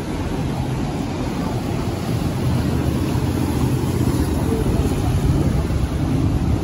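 City street ambience: a steady low rumble of traffic and street noise, with no single sound standing out.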